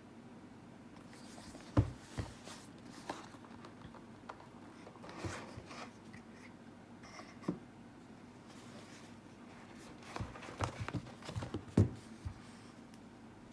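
Hands handling a smartphone's retail box and packaging: scattered knocks, taps and rustling. The sharpest knocks come about two seconds in and again near the end, with a quick run of taps just before.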